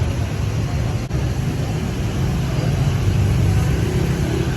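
Steady street traffic noise, a constant low engine rumble and road hiss with no clear single vehicle standing out. There is a brief click about a second in.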